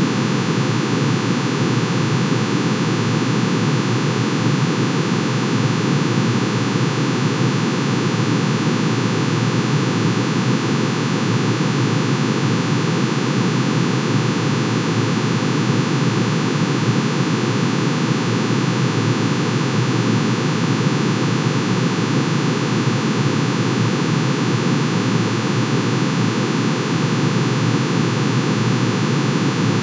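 Synthesized drone of many steady sine tones added together, one for each emission line of manganese's atomic spectrum shifted down to audible pitch. It is an unchanging, hissy, dense chord with most of its weight in the low-middle range.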